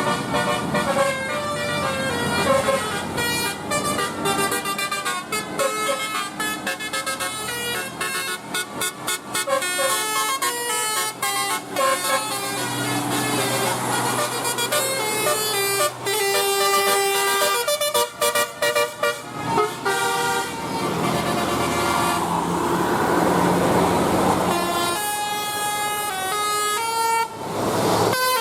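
Bus telolet horn: a multi-tone air horn playing quick melodies of stepped notes, over and over. A stretch of rushing noise comes in about three quarters through.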